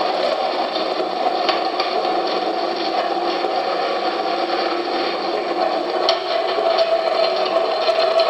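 Breadfruit shredding mill running steadily while pieces of peeled breadfruit are fed in and grated into shreds, with small scraping clicks from the pieces against the cutter.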